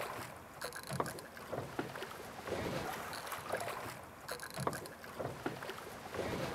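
Small waves lapping and slapping irregularly against a drifting boat's hull, with wind on the microphone.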